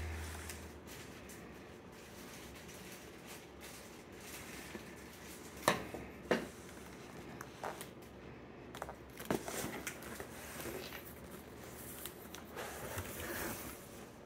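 Cardboard box lid and flap being handled and opened: low rustling and scraping with a few sharp clicks and knocks, the loudest two close together about six seconds in.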